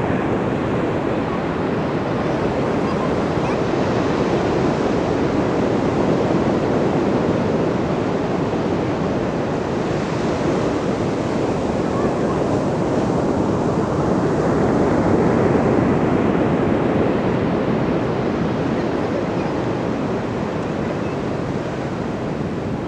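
Ocean surf: a continuous wash of breaking waves that swells and eases over several seconds, loudest about two-thirds of the way through.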